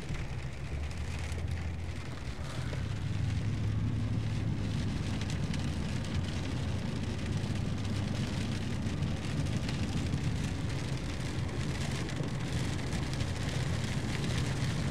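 Steady low rumble of a car driving on a wet road, heard from inside the cabin, with rain hitting the car's glass and body.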